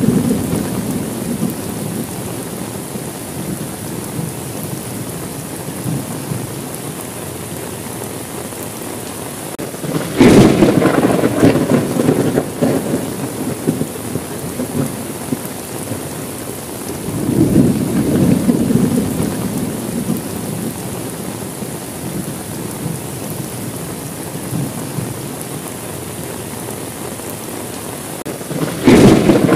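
Steady rain with thunder. A sharp thunderclap about ten seconds in rumbles on for several seconds, a softer rumble follows about seven seconds later, and another clap breaks near the end.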